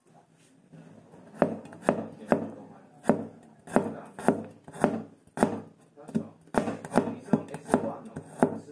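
Kitchen knife chopping on a cutting board, starting about a second and a half in and going at roughly two strokes a second.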